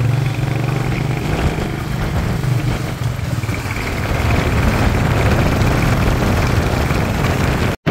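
Motorcycle engine running with a steady low note. The sound cuts out for an instant near the end.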